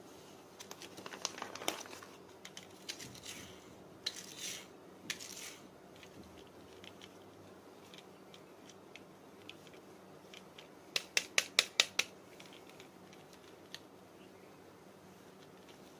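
Small plastic toy cars being handled and set down on artificial grass: scattered light clicks and brief rustles, then a quick run of about six sharp clicks close together about two-thirds of the way through.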